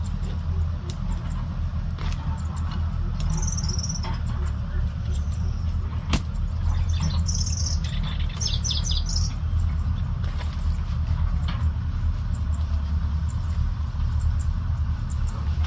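A steady low rumble, with scattered dull knocks and scrapes as a knife and hands dig into dry soil, the sharpest about six seconds in. A bird chirps briefly a few times near the middle.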